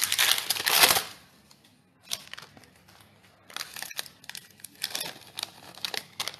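Sticker-pack wrapper being torn open with a loud crinkling tear in the first second. From about three and a half seconds in comes softer rustling and crackling of the stickers being handled and a self-adhesive sticker's backing paper peeled away.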